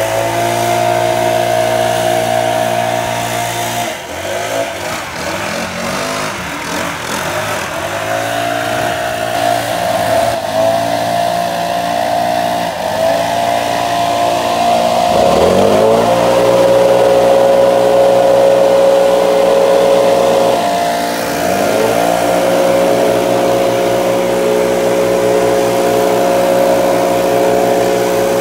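Gas-powered backpack leaf blower running at high throttle. Its engine speed dips and climbs back up about half a dozen times as the throttle is eased and reopened.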